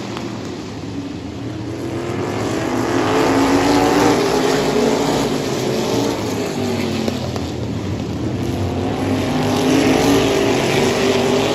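Several race car engines running hard around the track, their pitch rising and falling, swelling louder about four seconds in and again near the end as cars pass by.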